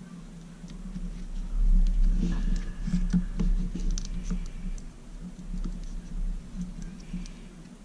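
Hand-handling noise from a plastic ducted micro-quadcopter frame: small clicks and scratches of fingers and plastic parts being pressed and worked together, busiest from about two seconds in until halfway through, over a steady low hum.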